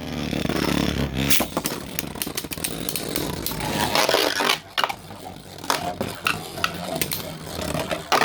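Two spinning Beyblades, one of them a 3D-printed Allmax, whirring and scraping around a plastic stadium and clashing together. Sharp hits come again and again, some very hard.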